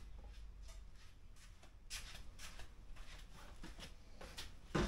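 Faint scattered rustles and light clicks of handling, with one louder knock near the end.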